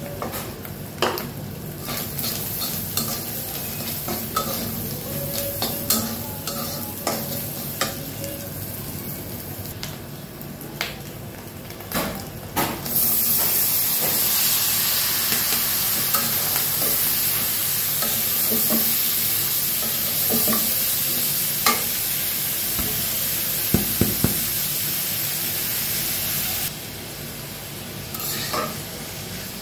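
A steel spatula scraping and tapping against a karahi as scrambled egg is stirred over a light sizzle. About halfway through, shredded vegetables are tipped into the hot oil and a loud, steady sizzle starts. It cuts off abruptly a few seconds before the end, leaving more spatula clicks.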